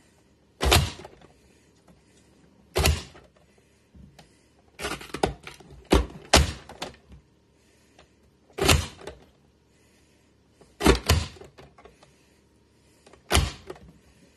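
Hand-pressed plastic vegetable dicer: its hinged lid is slammed down again and again, forcing bell pepper through the grid blade, a sharp thunk about every two seconds, some of them in quick pairs.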